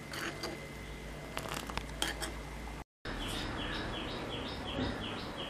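Spoon tapping and scraping against a kadai of boiling jaggery syrup, a few sharp clicks. After a brief break, the syrup bubbles steadily under a rapid run of high falling chirps, about four a second, from a small bird.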